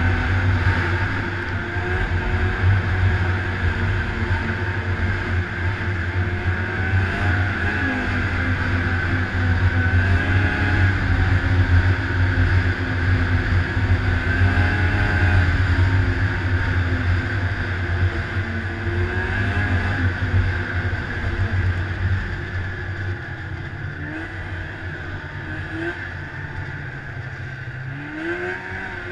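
Polaris XCF 440 snowmobile's two-stroke engine running under way, its pitch rising and falling with the throttle over a steady hiss. The revs climb again near the end.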